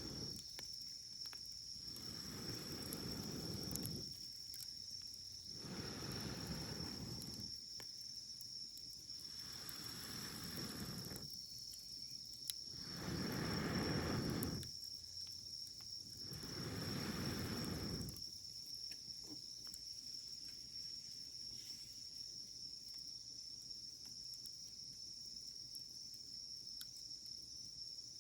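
Wood campfire with faint scattered crackles under a steady high-pitched insect trill. For the first two-thirds, five rushes of noise swell and fade about every two to three seconds, then stop.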